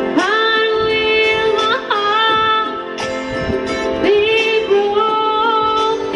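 A woman singing over a karaoke backing track with guitar, in long held notes that waver slightly in pitch.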